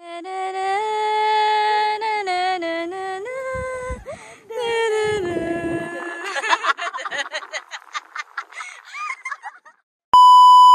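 A woman's voice singing a wordless tune herself in place of background music, holding notes and sliding between them. Near the end there is a short, loud, steady test-tone beep of the kind played over TV colour bars.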